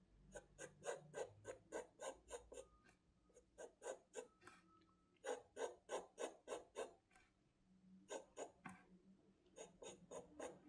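Graphite pencil scratching faintly on paper in short quick strokes, about three or four a second, in bursts of several strokes with brief pauses between, as outline lines are sketched.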